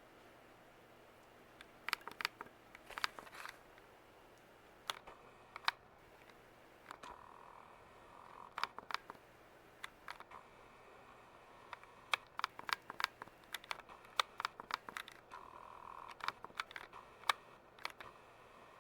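Irregular sharp clicks and taps in several quick runs, as of small hard objects being handled, over a faint steady background hum.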